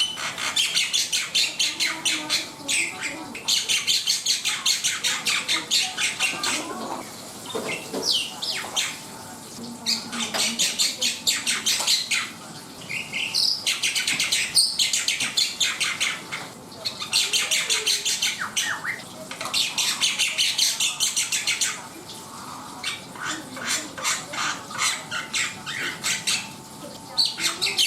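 Black-winged myna (jalak putih) singing: bouts of rapid, closely repeated high notes a few seconds long, with short pauses between them.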